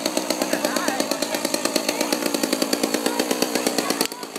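A small engine running steadily with a rapid, even pulse, about a dozen beats a second. It drops in level just before the end.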